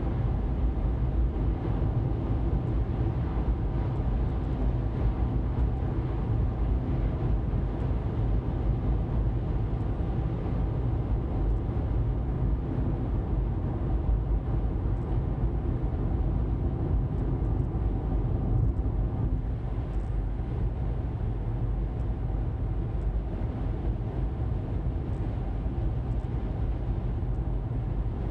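A car cruising at steady speed: continuous engine and tyre drone on the road, easing off a little about two-thirds of the way through.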